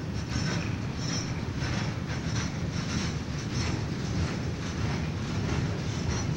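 A CSX freight train's boxcars and lumber-laden bulkhead flatcars rolling past with a steady rumble, the wheels clicking over rail joints about two to three times a second.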